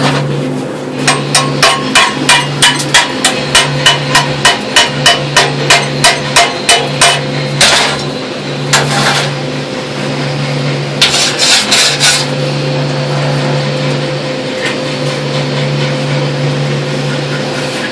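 Metal hammer striking a stick weld in quick, even blows, about three a second for several seconds, then a few short scrapes: the sound typical of chipping slag off a weld bead.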